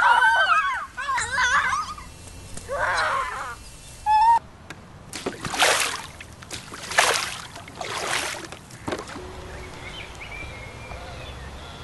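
Girls shrieking, then three loud splashes into water about a second apart, followed by softer sloshing and dripping water.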